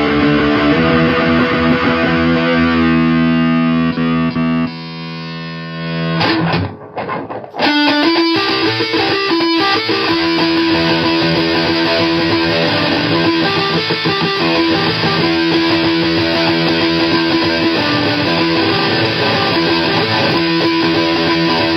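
Electric guitar played with heavy fuzz and overdrive through a solid-state amp head, driven by a Shroot overdrive into a 77 Fuzz Blender pedal. Held, ringing chords open the passage. The level drops and briefly dips about five to seven seconds in, then steady riffing resumes.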